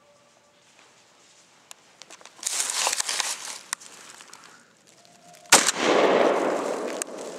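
Rustling and handling noise about two and a half seconds in, then a single loud gunshot about five and a half seconds in, its report rolling on through the woods for over a second.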